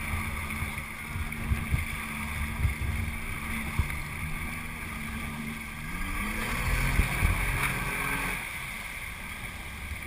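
Motorboat engine running steadily, its pitch rising as it revs up about six seconds in, then the engine note drops away about two seconds later. Wind buffets the microphone throughout.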